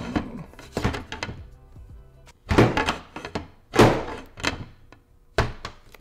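Glass side panel of a Lian Li O11D Mini PC case knocking against the case frame: a series of about five hard thunks, the loudest just past the middle, as the panel is pushed on and fails to seat.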